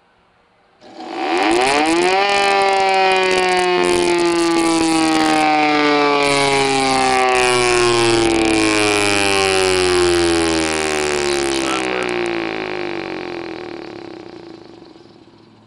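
Chopper motor and rotor of a Thunderbolt 1000A civil-defense siren, out of the siren housing, switched on: it spins up in about a second and a half to a loud siren-like whine, then the pitch slides slowly down and the sound fades out near the end. A rough crackle rides over the whine while it is loudest, from the motor's brushes sparking.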